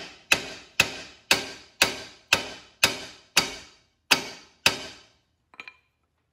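Hammer blows on the steering knuckle of a 2016 Nissan Versa, trying to shock the knuckle loose from the lower ball joint stud. Nine sharp, ringing metal-on-metal strikes come about two a second, followed by one light clink.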